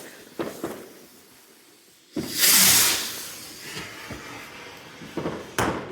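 A firework going off with a sudden loud hiss about two seconds in, fading away over the next two seconds.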